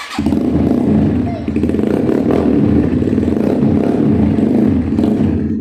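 Engine of a Kawasaki Ninja 350cc replica motorcycle running loud and fairly steady. It comes in suddenly just after the start.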